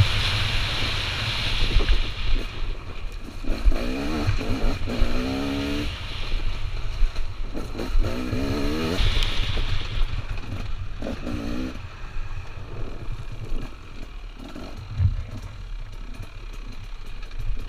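Dirt bike engine revving in repeated bursts, its pitch climbing and dropping with the throttle, over steady wind and rumble on the helmet microphone and knocks from the tyres over rough ground. The engine note is quieter and lower over the last several seconds.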